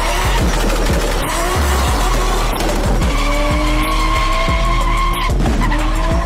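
Toyota Supra drifting: its tyres squeal in a long steady screech through the middle of the slide while the engine runs hard.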